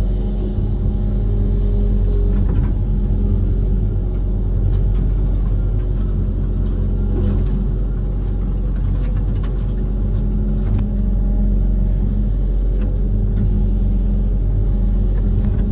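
Diesel engine of a Kobelco SK130 amphibious excavator running steadily, with a few light knocks.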